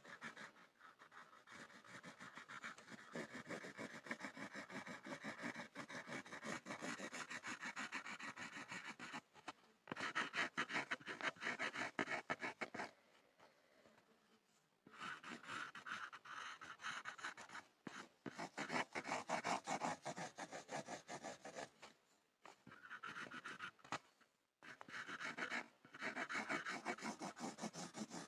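Pencil scribbling on a board in quick back-and-forth strokes. It comes in runs of several seconds with short pauses between them, and the run about ten seconds in is the loudest.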